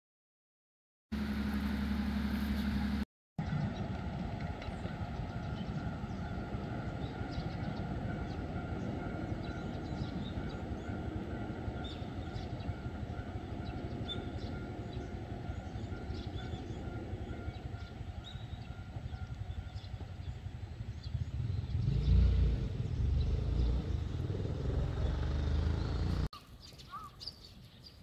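Street traffic ambience: a steady hum of road traffic, with a vehicle passing close and rising to a louder low rumble near the end. Faint bird chirps over it.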